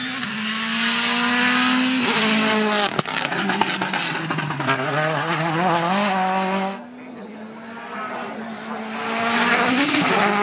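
Rally car engines at full throttle on a stage. The first car passes close by, its engine note dropping as it goes past, with a burst of sharp crackles and bangs about three seconds in. It revs up and down as it fades away. A second rally car then approaches and grows loud near the end.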